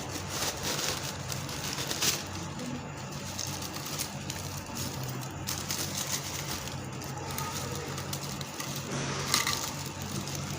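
Wrapping being handled and opened around a scented candle: crinkling and rustling with occasional sharp clicks, over a steady low hum.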